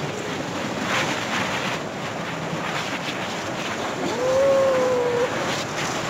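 Wind buffeting the microphone and the rushing hiss of an inflated rubber tube sliding down a snow slope. About four seconds in, one long whoop from a voice, held for just over a second.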